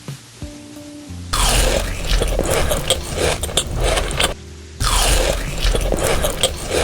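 Close-up crunching of food being bitten and chewed, loud and crackly, in two stretches of about three seconds each with a short break between. Soft background music plays throughout.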